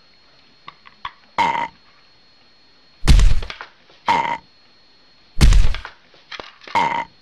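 A plastic food bowl bangs twice, heavily, on a tile floor as a cat and an Amazon parrot push it between them. Three short, harsh calls from the parrot come in between, plus a few faint clicks.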